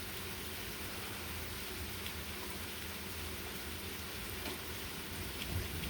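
Light rain falling steadily, an even hiss with a few faint drop ticks.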